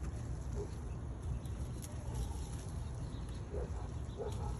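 A few short, low calls from an animal, one early and a few more close together near the end, over a steady low rumble.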